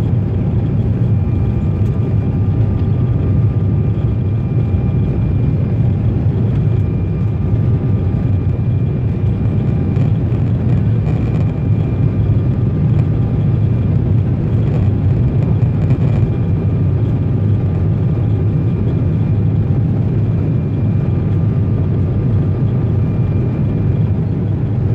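Jet airliner cabin noise during the climb after take-off: the engines and the rushing air make a steady, deep rumble, with faint steady whining tones above it.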